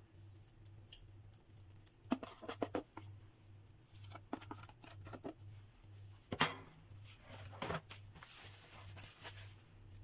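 Hands placing pieces of grilled eggplant and pickle on a raw dough base: scattered soft clicks and rustles, the sharpest about six and a half seconds in and a longer rustle near the end, over a low steady hum.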